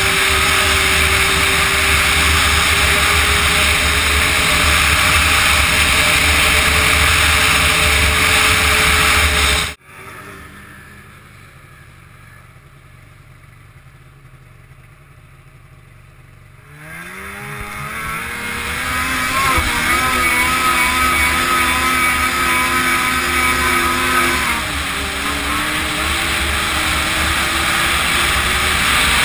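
Polaris Fusion 600 two-stroke snowmobile running at speed. About a third of the way in the sound drops abruptly to a much quieter stretch, then the engine revs up with a rising pitch and runs on at speed, easing briefly near the end.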